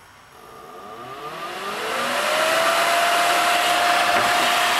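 Powerful 12-volt, 200 CFM fan spinning up from a standstill, its whine rising in pitch and its rush of air growing louder over about two and a half seconds. It then runs steadily at full speed with a steady whine.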